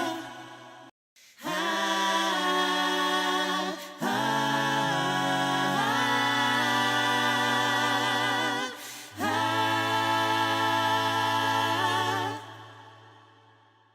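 Several voices singing held chords without accompaniment, with slight vibrato and gliding shifts between notes. There are three long phrases with short breaks between them, and the last one fades away near the end.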